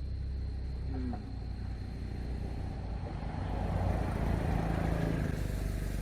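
A motor vehicle's engine rumbling steadily, growing louder about halfway through as it passes, then easing off.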